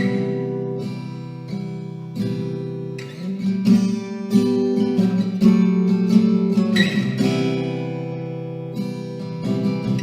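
Instrumental music: an acoustic guitar strumming sustained chords, without vocals.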